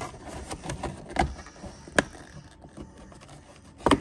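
Plastic interior door trim access panel being pried out by hand: rubbing and scraping of plastic with a few sharp clicks as its retaining clips let go, the loudest about two seconds in and a pair near the end.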